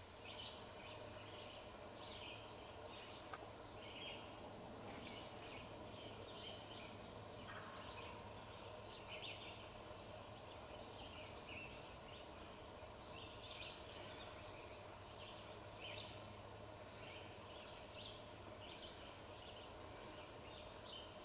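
Faint woodland bird calls: many short, high chirps scattered throughout, over a low steady hum.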